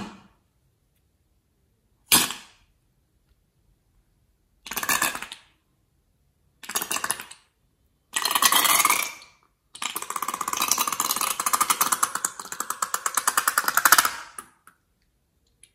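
Cream-coloured liquid squeezed from the neck of a long rubber balloon into a glass bowl of slime, coming out in three separate wet squirts. It ends in about four seconds of rapid, even crackling sputters as air and liquid spurt through the opening. There is a single sharp click about two seconds in.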